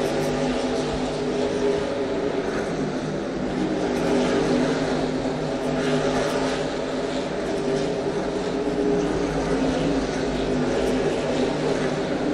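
Several race car engines running together in a steady, continuous drone, as the sound effect for a car race.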